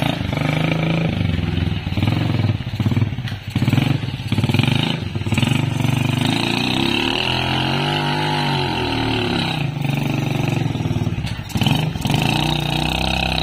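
Small motorcycle engine of a home-built three-wheeled cargo trike running under load with a rider and a standing passenger aboard. Its note rises and falls back in the middle as the throttle is worked, and several knocks are heard along the way.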